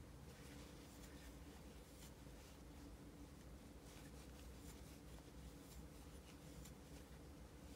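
Faint, quick scratching and light ticks of a metal crochet hook pulling yarn through stitches, over a steady low hum.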